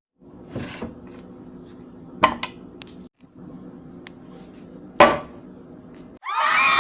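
Sandwich-making clatter: a soft whoosh, then sharp knocks and clinks like dishes and utensils being handled, over a steady hum. Near the end a loud burst of many overlapping, wavering shrill tones cuts in.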